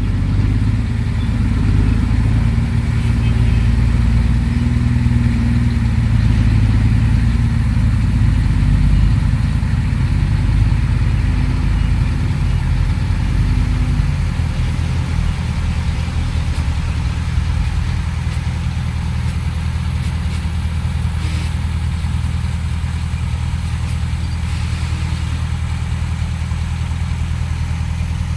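Heavy diesel machinery engine running with a low, steady drone, working harder at first and settling to a steadier, slightly quieter run about halfway through.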